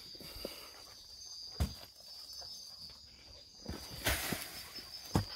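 Insects trilling steadily in one high thin tone, with a few scattered knocks and rustles of people moving in the brush: one about a second and a half in, a cluster around the four-second mark, and one near the end.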